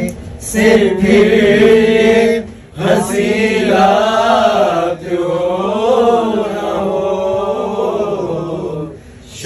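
Men's voices singing a chant-like song together, loudly, in long phrases of held notes that waver up and down, with short breaks between phrases.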